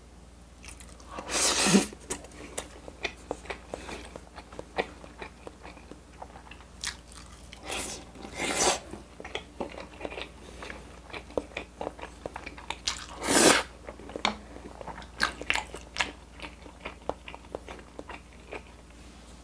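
Close-miked eating: bites of a rice ball and a cheese-filled hamburger steak, with wet chewing clicks throughout and three louder bursts spread across the stretch.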